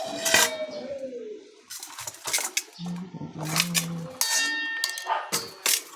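Clinking and clattering of hard parts and tools being handled, a string of short knocks, with a brief metallic ring a little past the middle.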